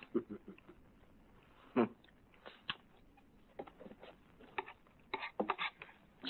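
A man eating hungrily with a spoon from a plate: irregular clinks and scrapes of the spoon with chewing sounds, coming thicker near the end.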